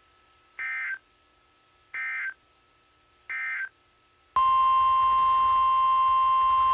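Emergency Alert System SAME data tones: three short, identical warbling bursts about a second and a half apart, the end-of-message code closing a weather warning. About two-thirds of the way in, a loud steady 1050 Hz NOAA Weather Radio alert tone starts and holds, announcing the next warning.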